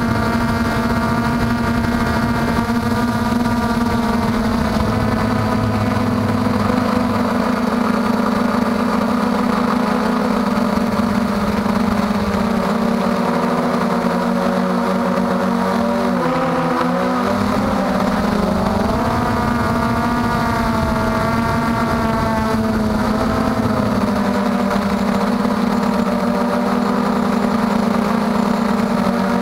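MJX Bugs 3 quadcopter's four brushless motors and propellers buzzing in flight, picked up by the camera riding on the drone. It is a steady, many-toned hum that dips in pitch a little past halfway as the throttle eases, then climbs back.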